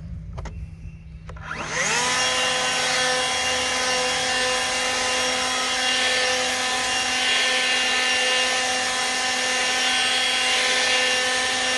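Hart 40V brushless turbo fan leaf blower spinning up with a rising whine about a second and a half in, after a couple of clicks, then running steady in non-turbo mode: a constant fan whine over a rush of air.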